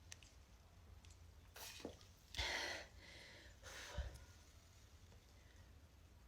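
A person's breathing: three short, breathy exhales through the mouth, the loudest and longest about two and a half seconds in, over a faint low room hum.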